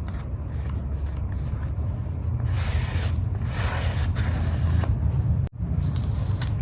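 Paper being rubbed and scraped during journaling: short strokes, then a longer rasping stretch in the middle, with a brief break near the end.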